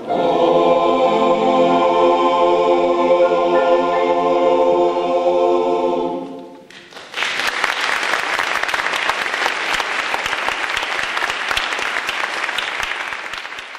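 A men's choir holds a final chord, which dies away about six seconds in; the audience then breaks into applause, which fades near the end.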